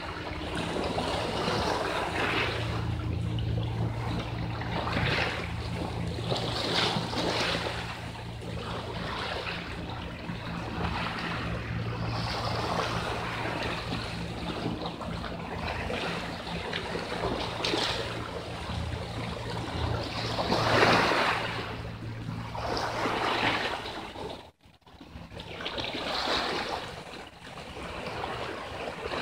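Small sea waves washing in and splashing against shoreline rocks, swelling and falling every few seconds. A steady low hum runs underneath until about 24 seconds in, and the sound briefly drops out just after.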